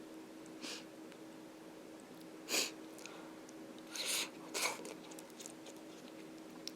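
A person eating at home: about four short breathy mouth sounds over a faint steady hum.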